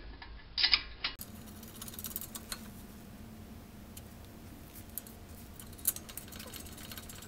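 Small metallic clicks and taps of a brake caliper bracket and its bolts being handled and fitted, loudest as a short clatter about a second in, then a few scattered clicks over a faint steady hum.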